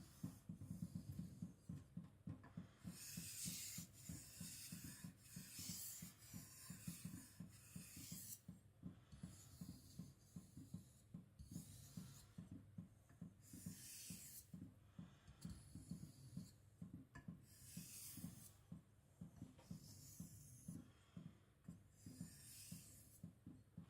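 Kiridashi blade being stropped: a faint, steady run of quick rubbing strokes, the final step after sharpening on stones.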